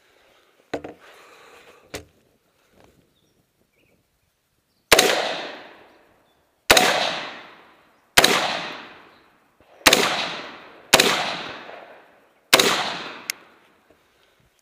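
Six shots from an AR-15-style semi-automatic rifle, fired singly about one to one and a half seconds apart. Each shot rings out for about a second. Two faint clicks come before the first shot.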